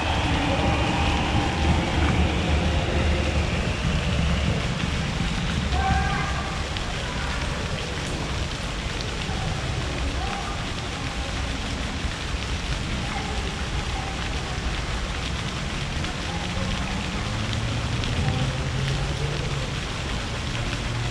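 Indistinct distant voices of an outdoor crowd over a steady rushing hiss, with a low steady hum coming in near the end.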